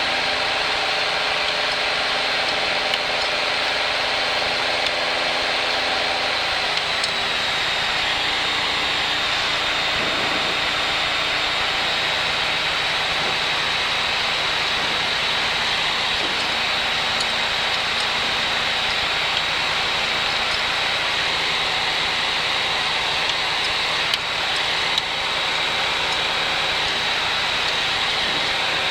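Light aircraft's piston engine running steadily, heard from inside the cockpit, with a steady high whine over it; the engine note drops slightly about seven seconds in, a change in power setting.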